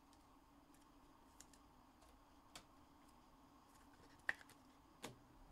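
Near silence: faint room tone with a few sparse, faint clicks.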